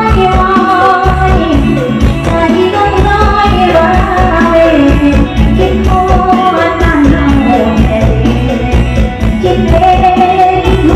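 A song with singing over a strong, heavy bass, played loud through an outdoor PA system's tripod-mounted loudspeakers.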